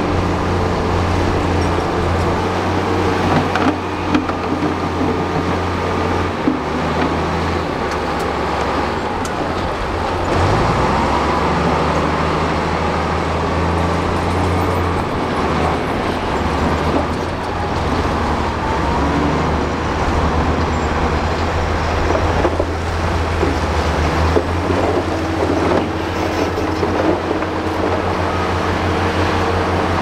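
Heavy diesel engines of dump trucks and a crawler bulldozer running, the engine note shifting as the machines work, with one engine revving up about ten seconds in. A few short knocks sound over the engines.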